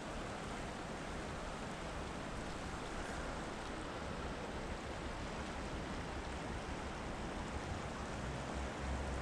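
A shallow river running over a rocky bed: a steady rushing hiss, with a low rumble coming in near the end.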